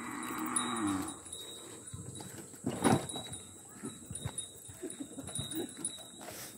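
A cow pulling a wooden cart gives a short low call that falls in pitch during the first second. About three seconds in comes a single sharp knock, followed by light, irregular clatter of hooves and cart on the road.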